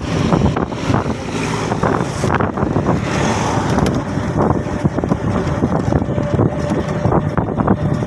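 Wind buffeting the microphone of a phone held on a moving open vehicle, over the road and motor noise of the ride. An oncoming truck passes about two seconds in, adding a brief rushing hiss.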